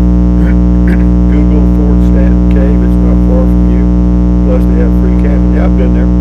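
A loud, steady electrical buzz, a low mains-type hum with many overtones, runs unchanged under a faint, muffled voice.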